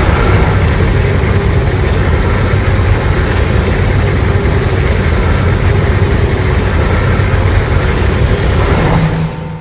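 Film sound effect: a loud, steady, deep rumble with a rushing hiss over it, dropping away about nine seconds in and fading out.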